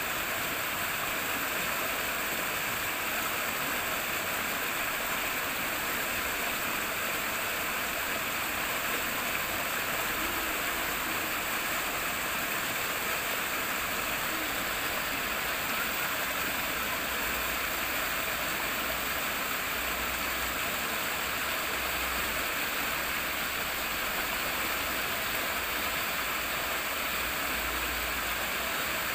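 Flowing water rippling and rushing steadily. A faint low rumble comes and goes from about a third of the way in.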